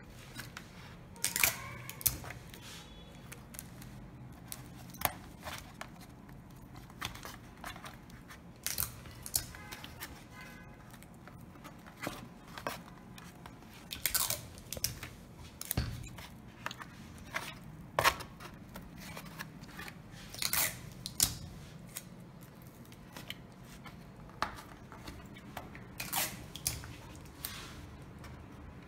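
Depron foam-board parts being handled and pressed into their slots, giving irregular crackles and clicks of foam rubbing and pressing, over a faint steady low hum.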